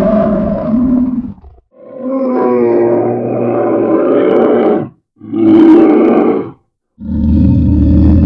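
Bear roaring in a run of separate, loud roars with short silent breaks between them: one dying away about a second and a half in, a long roar of about three seconds, a shorter one, and another beginning near the end.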